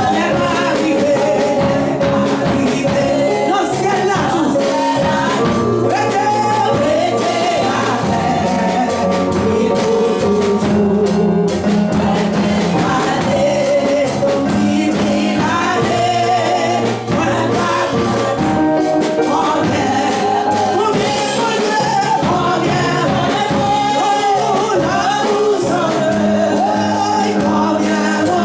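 Gospel song sung by voices over instrumental accompaniment, with a steady beat and held bass notes.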